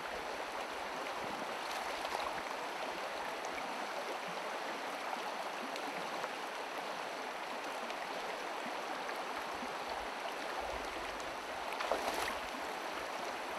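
Shallow rocky river flowing steadily over stones, a constant rushing wash. About twelve seconds in comes a brief, louder splash of a boot wading through the water.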